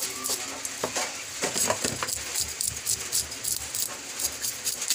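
Small knife scraping the scales off a minstrel sweetlips fish: quick, repeated rasping strokes of the blade against the scales, with flakes skittering onto the board.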